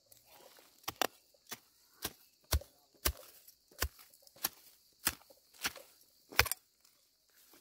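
Short-handled hoe chopping into soil while digging up turmeric roots: about eleven dull strikes at a steady pace of a little under two a second, which stop about a second before the end.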